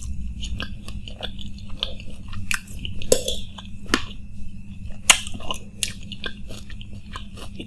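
Close-miked chewing of crunchy dahi puri: wet, irregular crunching and mouth sounds over a steady low hum. A spoon taps the plate about four seconds in.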